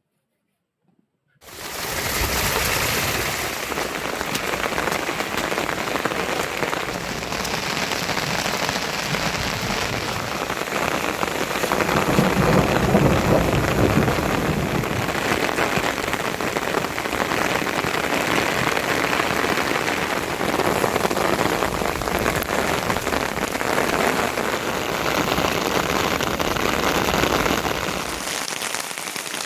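Heavy rain pouring steadily, coming in suddenly about a second and a half in.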